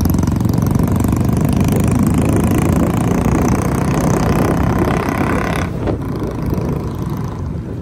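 Motorcycle engine running on the move, a steady low hum under a loud rush of noise whose highest part eases about three-quarters of the way through.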